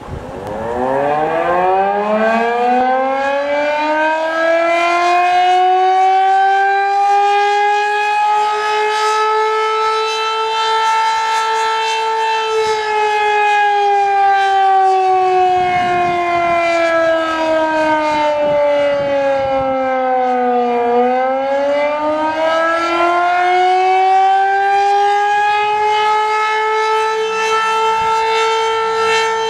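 Federal Signal Model 5 eight-port civil defense siren sounding the attack signal. It winds up from low pitch to a loud, steady wail over the first several seconds, falls slowly to a low point about twenty seconds in, then winds back up to full pitch.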